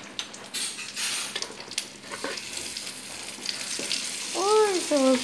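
Pancake batter sizzling in oil in a frying pan on a gas stove, with a few small clicks and knocks of utensils. Near the end a wordless voice rises and falls in pitch, twice.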